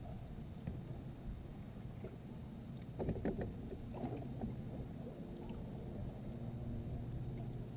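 Steady low rumble of a bass boat sitting on the water, with a few knocks about three to four seconds in.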